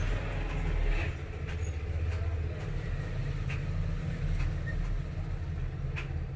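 Low steady background rumble with a few faint, sharp clicks scattered through it.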